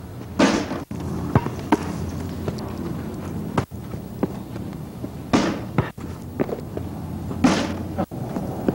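A basketball striking a backboard and rim and bouncing on pavement: three loud hits, the first just after the start and the other two about two seconds apart near the end, with a few lighter knocks between, over a steady low rumble.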